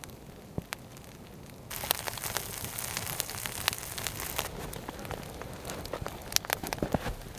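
A wood fire of three logs burning, crackling and hissing with frequent sharp pops; it gets louder about two seconds in.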